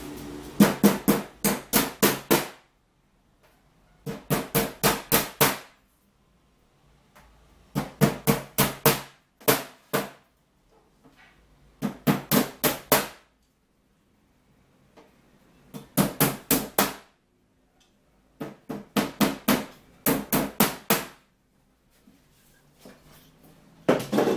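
Hammer nailing the bottom panel of a drawer: quick runs of five to eight sharp strikes, with pauses of a second or two between the runs.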